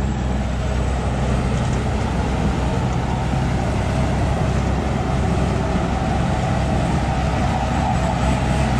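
Engine of a tracked rice combine harvester running steadily as the machine crawls through deep paddy mud, its note strengthening slightly near the end.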